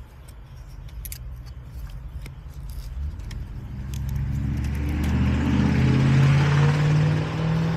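A car passing by, its engine growing louder from about three seconds in to a peak around six seconds, then easing off. A couple of light clicks come before it.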